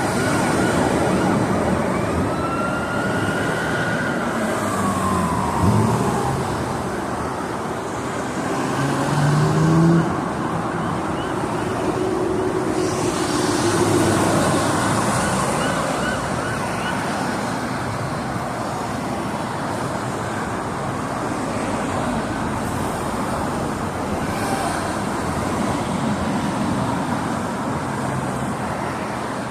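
Steady freeway traffic noise, with a police siren wailing past in the first six seconds or so, its pitch falling as it goes by.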